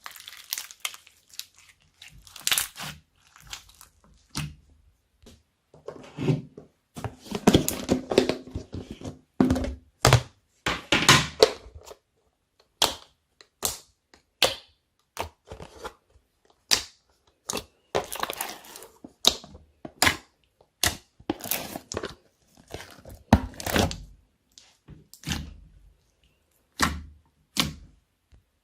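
Slime being squeezed, pressed and stretched by hand, giving a series of sharp, irregular clicks and pops from trapped air, with denser crackling stretches in between.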